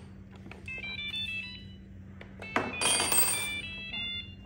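iRobot Braava 380t robot mop powering on and playing its electronic start-up tune: a short run of stepped beeps, then a louder rushing burst with notes over it about two and a half seconds in, and a few more beeps.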